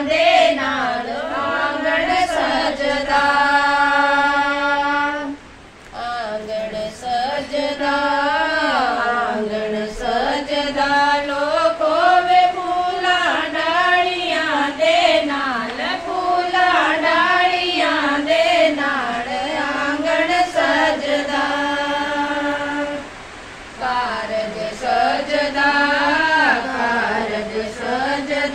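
Women's voices singing a traditional song in unison, a slow melody of long held notes with short pauses for breath, once about five seconds in and again near the end.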